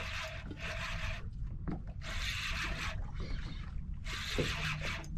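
Water lapping and splashing against a boat's hull in rushes about every two seconds, over a steady low rumble of wind and sea.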